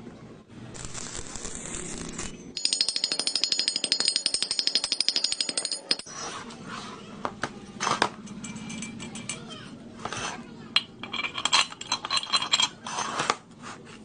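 Metal workshop handling sounds: a short hiss, then about three seconds of rapid, even rattling with a high metallic ring, then scattered knocks and ringing clinks of metal parts.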